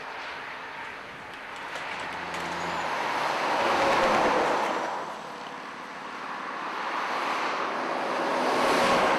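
Heavy trucks passing on a road: their engine and tyre noise swells to a loud peak about four seconds in, dies back, then builds to a second peak near the end.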